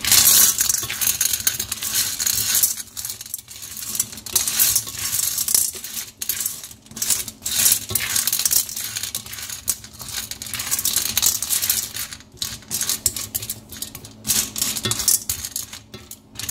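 Lumps of rock sugar rattling and scraping against a stainless steel bowl as a spatula stirs them together with halved calamansi and ginger strips. It is a dense, loud clatter that eases for a moment now and then.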